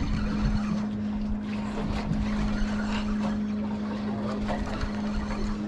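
Boat motor running steadily at low speed, a constant hum under rough, gusting wind and water noise.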